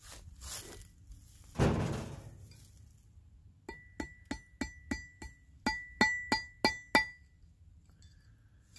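Hand hammer striking a copper rod on a railroad-rail anvil: about eleven quick metal blows in two runs, roughly three a second, each with a short high ring. A brief rustling noise comes before the blows.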